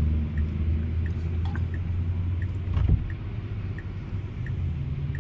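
Inside a Tesla's cabin: passing cars make a low rumble and hiss on the wet road, and the turn-signal indicator ticks evenly about once every 0.7 seconds. A single sharp knock comes about three seconds in, after which the rumble eases.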